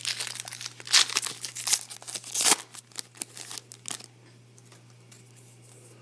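Foil wrapper of a baseball card pack being torn open and crinkled in a run of sharp crackles that stops about four seconds in.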